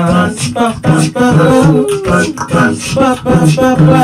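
Beatboxing into a handheld microphone: sharp mouth-made drum hits about two to three a second, over a low sung bass line that steps from note to note.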